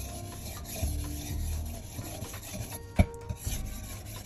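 Steel knife blade being stroked back and forth across a wet 1000-grit whetstone, a continuous gritty grinding that swells with each stroke. There is one sharp knock about three seconds in.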